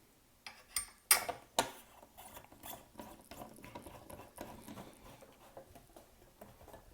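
Sharp clicks and knocks, then a run of small ticks and rattles, from a wall speaker and its mounting bracket being handled and fitted together. The loudest knock comes about a second in.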